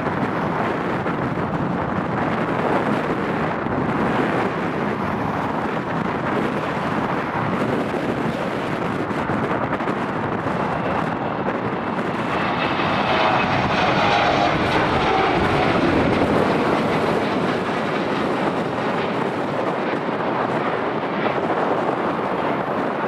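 Jet airliner taking off, its engines a continuous roar that swells about halfway through as it passes, with a whine that falls in pitch as it goes by.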